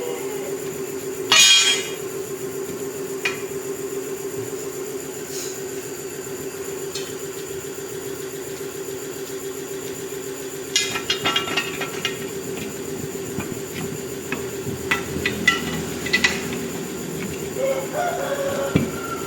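A steady machine hum runs throughout, broken by metal clanks and knocks: one loud clank about a second in, then a run of quicker clicks and knocks between about 11 and 16 seconds.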